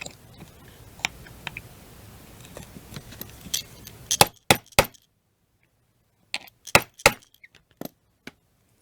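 Small hammer tapping a punch to drive a pin flush in the action of a Marlin Model 57 .22 rifle: sharp metallic taps, three about halfway through and several more near the end, after faint small clicks of handling.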